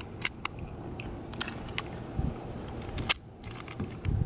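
A few light, sharp clicks and taps as a Bolt padlock with a plastic body and metal shackle is handled in the hands.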